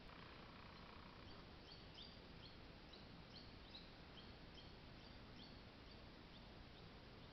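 Near silence: a faint steady hiss with a scatter of short, high-pitched chirps from about a second and a half to five and a half seconds in.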